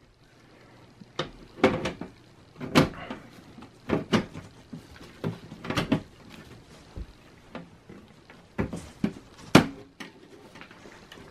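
Metal side cover of a Dell OptiPlex 980 desktop case being lowered onto the chassis and pressed shut: a series of sharp clicks and knocks of metal on metal. The loudest click comes near the end, as the cover seats.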